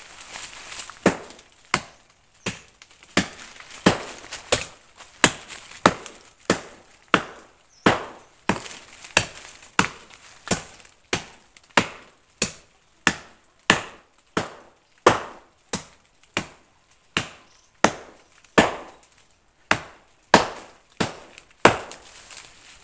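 Wood being chopped with a blade: sharp strokes at a steady pace, a little more than one a second.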